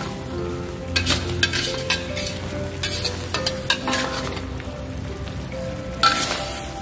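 Metal spatula scraping and knocking against a steel wok as a saucy stir-fry of sardines and corn is stirred, over a sizzle. The sharp scrapes come at irregular intervals, one of the loudest near the end.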